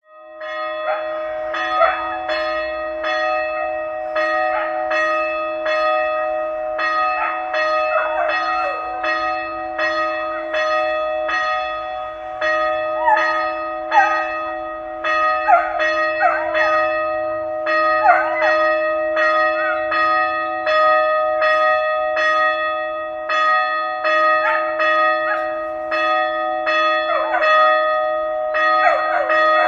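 Church bells ringing a fast peal: quick, uneven strokes, two or three a second, over the steady hum of the bells' ringing tones.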